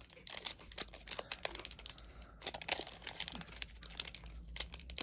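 Foil wrapper of a Pokémon card booster pack crinkling in the hands as it is worked and torn open, a run of small irregular crackles.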